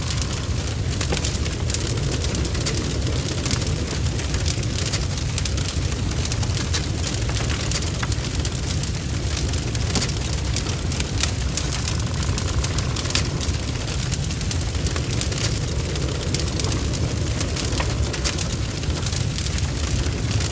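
Large barn fire burning: a steady low rumble under dense, irregular crackling and spitting.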